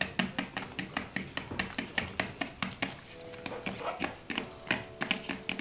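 Puppies' paws and claws pattering and clicking on newspaper, a quick run of sharp taps several times a second.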